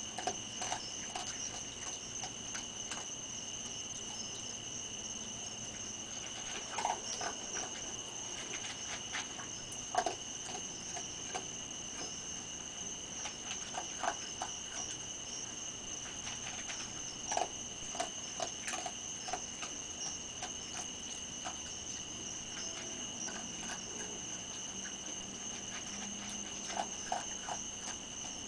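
Steady, high-pitched trilling of night insects, with scattered short clicks and crunches as a raccoon chews and picks food scraps off a plate.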